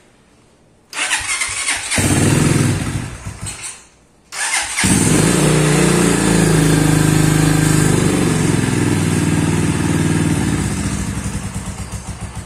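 Honda Strada 200 single-cylinder four-stroke engine (196 cc) in a Honda CG Today motorcycle being started. It catches about a second in, runs for about two seconds and stops. It is started again a little after four seconds in and keeps running, its pitch rising and falling with the throttle, then settles into a pulsing idle near the end.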